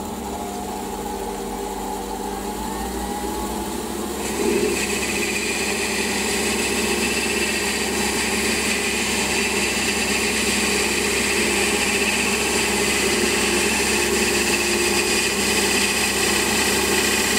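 Metal lathe running steadily. About four seconds in, the cutting tool bites into the spinning handwheel: a higher hiss of the cut joins the machine's hum while a long turning pass takes the diameter down and swarf streams off.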